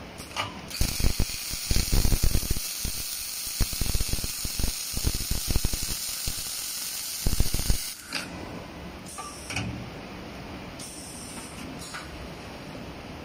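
Arc welding torches of an automatic beam welding machine welding at both ends at once: a loud hiss with irregular crackling that starts just under a second in and cuts off at about eight seconds. A few separate clicks follow.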